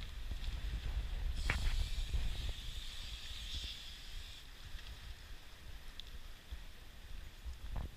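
Wind rumbling on the microphone, with a hissing rush that starts with a click about a second and a half in and lasts about three seconds.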